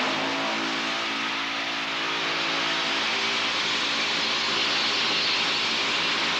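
Heavy underground mining machine running: a loud, even machine noise with a steady engine tone under it, wavering slightly in pitch in the first couple of seconds and then holding.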